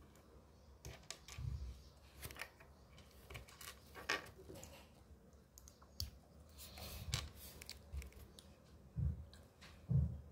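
Small plastic Lego bricks clicking and tapping as they are handled, pressed together and set down on a table, with a couple of soft thumps near the end.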